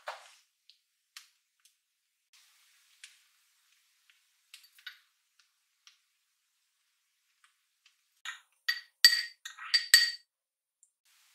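A few faint light taps, then near the end a quick run of ringing clinks as a ceramic spoon knocks against a ceramic bowl, tipping chopped green onions onto rice in a cast-iron pot.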